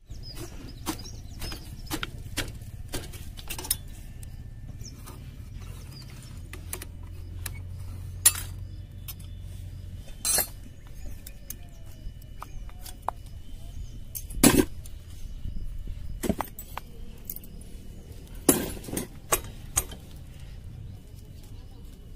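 Irregular clinks and knocks of metal tools and parts being handled, a few of them sharper and louder, over a steady low hum.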